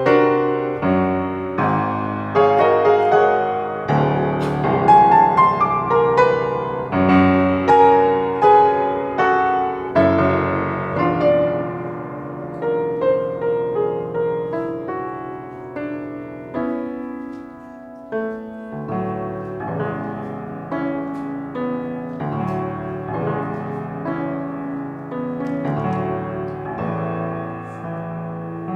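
Piano playing a flowing run of notes, fuller and louder through the first half, then softer and sparser for the rest.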